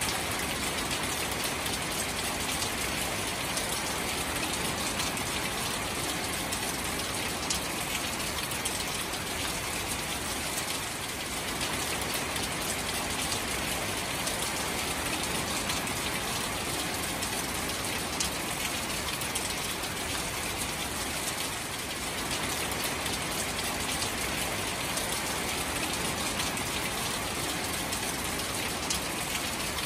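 Steady rain falling on shallow standing water among marsh grass: a dense, even hiss of countless small drops striking the water's surface, unchanging throughout.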